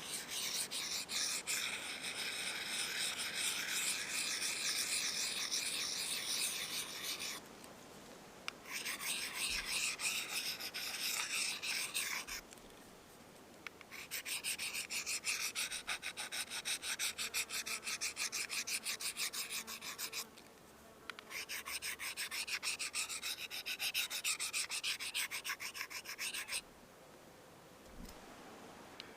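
Steel knife blade being stroked rapidly back and forth on a sharpening stone, a fast gritty scraping in four long runs with short breaks between them.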